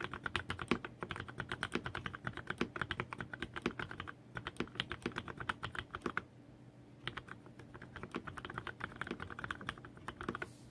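Fast typing on a Varmilo VA68M mechanical keyboard with lubed Cherry MX Black linear switches, 58 g springs, an aluminium plate and PBT keycaps: a rapid run of keystroke clacks. The typing stops briefly about six seconds in, then resumes.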